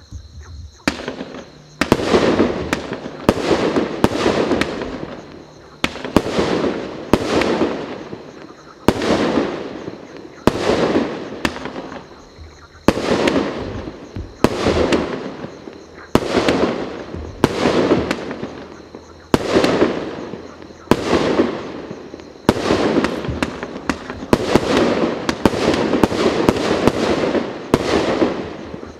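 A 49-shot, 1.25-inch-calibre consumer firework cake firing shot after shot, roughly one a second, each a sharp bang followed by a tail of crackle that fades over about a second.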